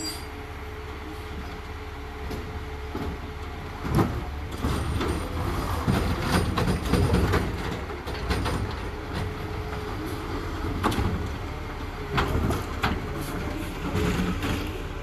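Garbage truck running with a steady low rumble. Sharp metallic clanks and bangs come about four seconds in, in a cluster through the middle, and again toward the end.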